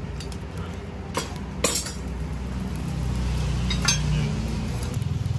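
A few sharp metal clinks from blacksmith's tongs and a steel knife blade, about three in all, over a low steady motor hum that grows louder about two seconds in.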